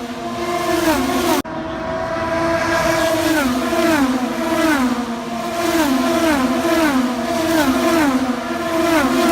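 IndyCar race cars' engines accelerating hard. The pitch climbs and then drops sharply with each quick upshift, over and over. The sound breaks off abruptly for an instant about a second and a half in.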